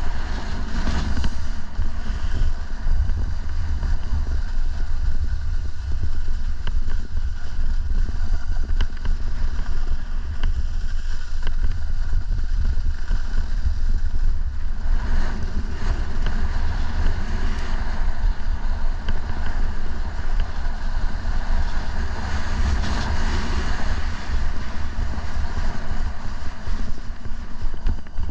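Wind buffeting the microphone in a steady low rumble, over a hiss that swells around the middle and again near the end.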